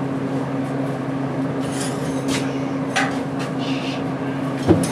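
Steady electrical hum from running shop equipment, with a few short metallic knocks, one about three seconds in and a louder one near the end.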